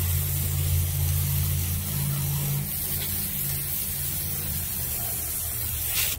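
Band sawmill cutting through a silver maple log: steady hiss of the blade in the wood over the low hum of the mill's motor. The cutting noise drops off suddenly at the very end.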